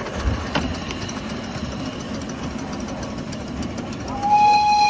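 Miniature 7¼-inch gauge train running along the track, then a single whistle blast about four seconds in, held for nearly a second; the whistle is the loudest sound.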